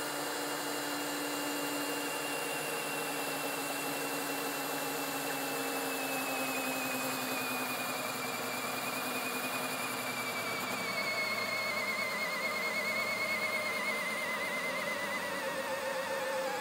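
CAT DX12 brushless cordless drill running at full trigger against a dyno's brake. Its steady high motor whine slowly drops in pitch and wavers in the second half as the load rises and the chuck speed falls.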